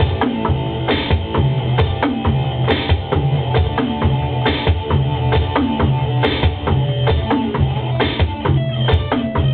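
Rock song with a full drum-kit part played on a Roland V-Drums electronic kit: a steady beat of bass drum and snare hits with regular cymbal crashes, over bass and guitar.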